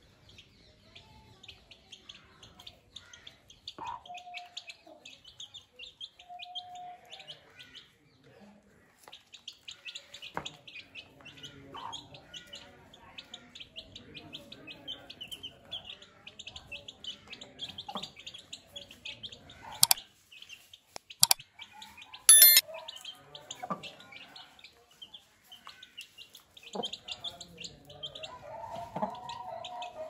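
Aseel chicks peeping rapidly and almost without pause, with the hen's occasional lower clucking calls. About two-thirds of the way through come three sharp clicks, the loudest sounds in the stretch.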